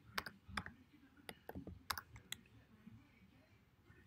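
Faint keystrokes on a computer keyboard as a word is typed: several separate taps over the first two and a half seconds.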